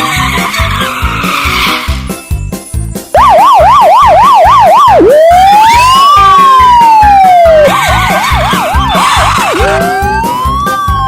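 Electronic emergency-vehicle siren sound effect, loud, cutting in about three seconds in. It alternates a fast yelp of about three to four warbles a second with a slow rising-and-falling wail, twice over. Background music with a steady beat runs underneath, and a short burst of hiss sounds in the first two seconds.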